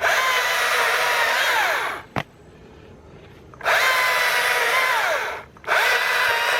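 STIHL battery electric chainsaw run in three bursts of about two seconds while cutting a log. Each burst is a motor whine that spins up, holds steady and winds down, with a short click in the pause about two seconds in. The battery is almost exhausted.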